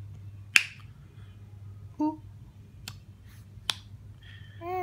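Three sharp finger snaps: one about half a second in, the loudest, then two close together near three and four seconds. Between them are short, wavering voice sounds, one about two seconds in and a longer one near the end, over a steady low hum.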